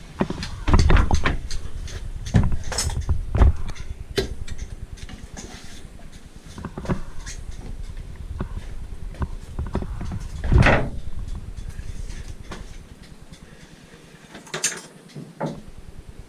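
Irregular knocks and clatter of dismantled engine parts being handled and put away, with several sharp knocks in the first four seconds and a louder one about ten and a half seconds in.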